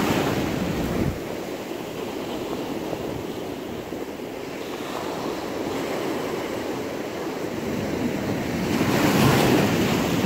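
Ocean surf washing onto the beach, with wind on the microphone. The wash is loudest in the first second, drops off suddenly, and swells up again near the end.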